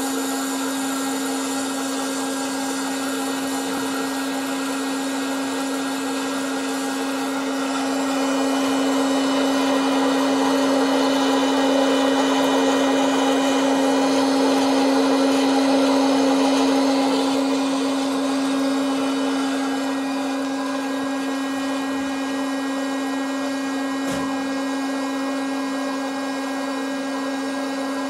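Hot-air popcorn maker running: its fan motor gives a steady hum with a rush of hot air through the popping chamber, a little louder for a while in the middle.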